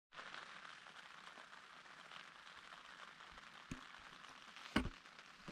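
Light rain pattering steadily on a tent, heard from inside. A small knock comes about three and a half seconds in, and a louder thump near five seconds.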